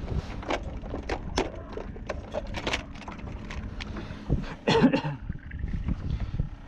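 Irregular knocks, clicks and clatter of handling in an aluminium fishing boat, with a louder burst of rustling knocks about five seconds in.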